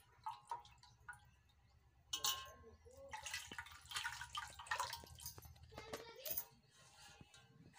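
Water splashing and dripping as vegetables are rubbed and swished by hand in a metal pot of water, with a few light knocks. The splashing starts about two seconds in and dies away about six seconds in.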